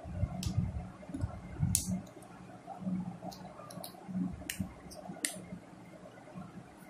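Sharp, irregular clicks with soft handling rustle as a 9V battery snap connector is fitted onto the terminals of a 9V battery.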